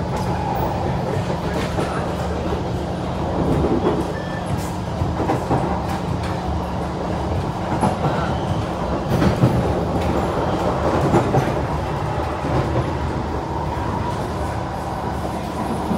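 Interior ride noise of an SMRT C151 metro train cruising at steady speed: wheels rumbling on the rails under the steady hum of its permanent-magnet synchronous traction motors, with a few clicks and knocks from the wheels.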